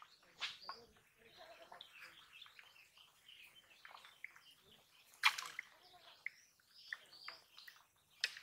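Small birds chirping in short, scattered calls, with one louder sharp sound about five seconds in.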